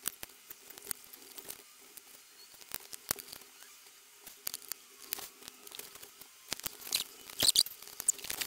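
Small clicks, taps and scrapes of a DJI Air Unit being reassembled by hand, its circuit board and small parts fitted back into the finned metal casing. The clicks come irregularly, with a louder cluster about seven seconds in.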